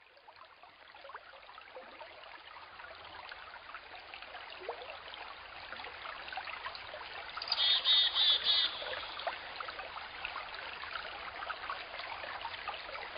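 Small creek trickling and babbling, fading in at the start and then running steadily. About eight seconds in, a brief run of high, rapid chirps is the loudest sound.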